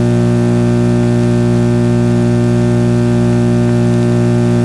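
Loud, steady electrical hum with hiss, holding several fixed low pitches without change.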